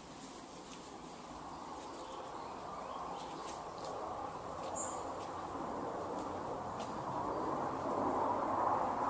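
Insects buzzing in the trees, a dense droning hum that grows steadily louder, with a thin, steady high-pitched whine above it and one short chirp about five seconds in.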